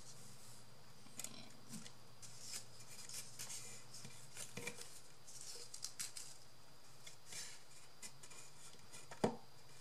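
Light rustling and crinkling of paper and fabric trim as hands press the trim along the edges of a wooden box, with a single sharp knock on wood about nine seconds in.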